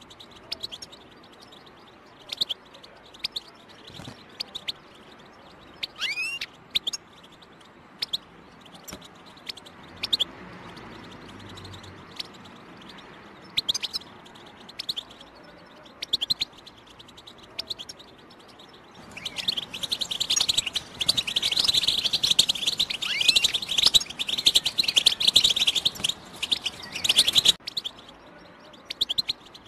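European goldfinch 'batbata' calls, the kind keepers play to excite a goldfinch into song. Short single chirps come every second or so, then about two-thirds of the way in a dense run of rapid twittering song lasts several seconds and cuts off suddenly.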